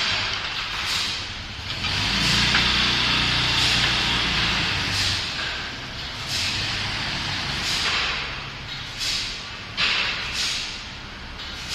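Woodworking cross-cut saw machine running, with a low motor hum under it. A louder, denser cutting noise starts about two seconds in and lasts about three seconds, and short sharp bursts recur every second or so.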